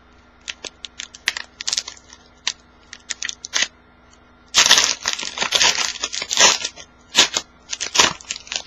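Trading cards being handled with scattered sharp clicks and snaps, then a card pack's wrapper crinkling and being torn open from about halfway through.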